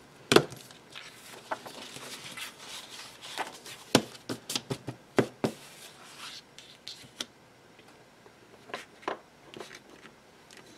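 Sheets of printed cardstock being folded in half and handled by hand: paper rustling and sliding, with sharp crisp snaps and taps, the loudest about half a second in and around four to five seconds in, quieter for a while near the end.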